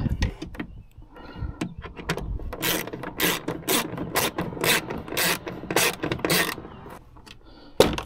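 Hand ratchet wrench clicking as it tightens the mounting screws of a tailgate door lock actuator, a run of quick strokes about three a second through the middle, after some soft handling of metal parts.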